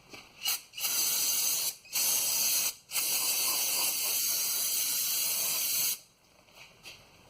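Aerosol can of brake cleaner spraying in bursts: a brief puff, two of about a second each, then one long spray of about three seconds. It is sprayed to wash oil residue off the truck's underside after an oil filter change.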